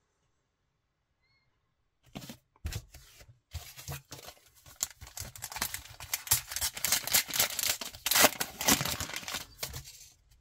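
Plastic wrapper of a Match Attax trading-card packet being torn open and crinkled by hand. It starts about two seconds in as irregular crackling and grows busier before dying away near the end.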